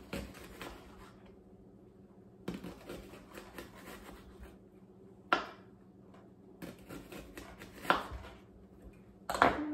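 Kitchen knife thinly slicing a red onion on a cutting board: runs of light taps as the blade meets the board, with a few sharper, louder knocks every two to three seconds, the loudest near the end.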